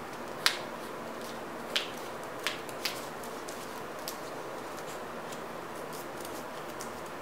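Scissors snipping through folded paper: about five sharp snips in the first four seconds, the first the loudest, over a steady hiss.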